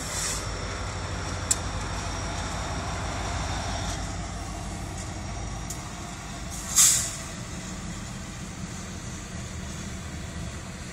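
CSX diesel freight locomotives, an EMD SD70ACe and a GE CW40-8, passing close by with a steady low engine rumble and a mid-pitched tone that sinks slowly in the first few seconds. About seven seconds in comes one short, sharp hiss.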